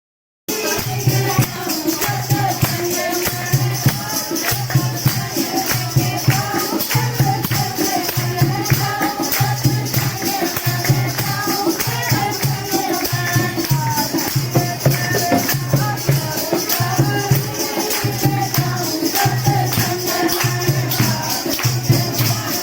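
Devotional Mata kirtan: group singing over a low drum beat about once a second and continuous jingling percussion such as a tambourine or hand cymbals. It starts just after a brief gap.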